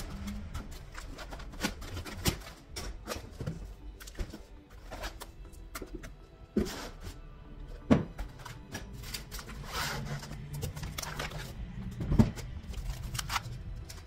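Unpacking noises: foam packing blocks and plastic-wrapped metal parts lifted out of a cardboard box, with scattered knocks, scrapes and rustles.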